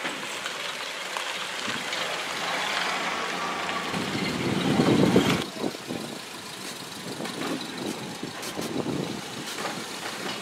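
Ford Model A four-cylinder engines running as the old cars drive past one after another, one of them loudest about five seconds in before its sound drops away.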